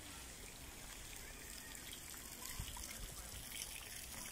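Faint, steady trickle of water at a pond, with a low rumble underneath.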